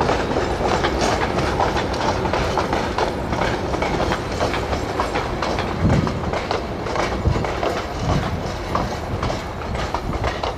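Vintage passenger carriages rolling past on jointed track, their wheels clattering over the rail joints with a few heavier knocks. The sound eases slightly near the end as the last carriage goes by.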